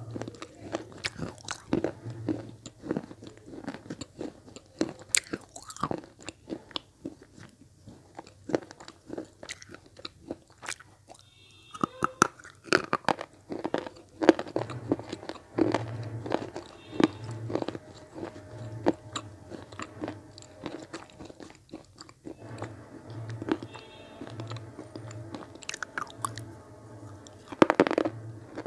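Red slate pencil blocks being bitten and chewed right at an earphone microphone: a dense, irregular run of sharp, dry crunches.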